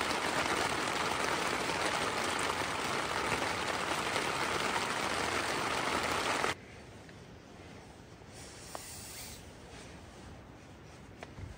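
Heavy rain beating down on a tent, a steady dense hiss that cuts off abruptly about six and a half seconds in, leaving a much quieter background with a few faint ticks.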